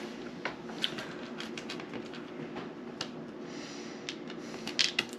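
Light, scattered clicks and taps of board-game cards and small game pieces being handled on a table, with a louder little cluster of clicks near the end, over a low steady room hum.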